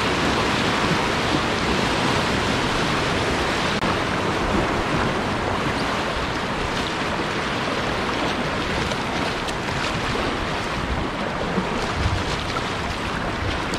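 Whitewater churning in a river hole at high water, a loud steady rush of turbulent water.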